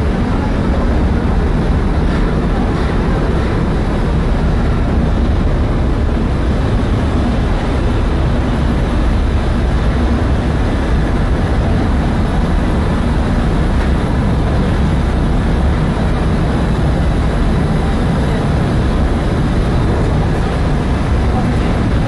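Loud, steady drone of a ship's running main engine and machinery, heard in the steering gear room, with a deep low rumble and no breaks.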